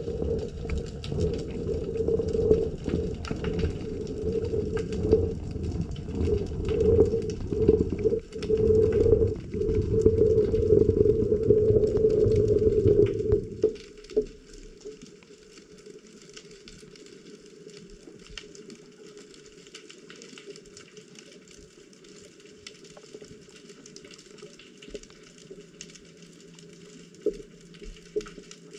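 Underwater sound picked up by a camera in seawater: a loud, churning low rumble of moving water that cuts off suddenly about 13 to 14 seconds in, leaving a faint hiss with light scattered ticking.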